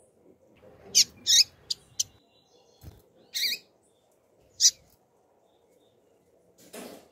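Female double-collared seedeater (coleiro) giving short, sharp, high-pitched chirps, about six of them, several in quick succession in the first two seconds and then singly. A brief rustle near the end.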